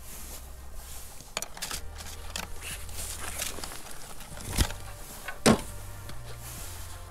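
Fishing tackle being handled at the bank: scattered small clicks and rattles, with two sharp knocks about four and a half and five and a half seconds in, the second one the loudest.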